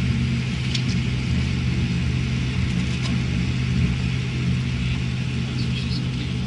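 Cabin noise inside a Boeing 787-9 airliner taxiing after landing: a steady low drone of the engines at idle and the airframe, with air-conditioning hiss and a couple of faint clicks.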